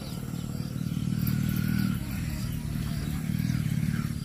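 A motor vehicle engine running, a low drone that grows louder over the first couple of seconds and then holds steady.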